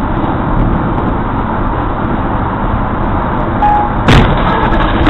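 Steady road noise of a moving vehicle, broken about four seconds in by one sudden loud bang: a tyre bursting while driving.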